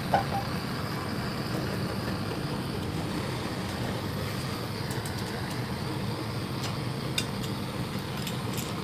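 Handheld gas torch running with a steady rushing hiss while softened paint and body filler are scraped off a metal motorcycle fuel tank, with a few sharp clicks of the scraper in the second half.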